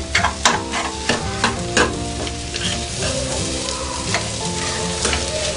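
Ivy gourd and scrambled egg stir-frying in a pan: a metal spoon scraping and tapping against the pan over a steady sizzle from the hot oil. The strokes come quickly in the first two seconds, then ease off. The mix is being fried dry until it turns loose and crumbly, the sign that the fry is nearly done.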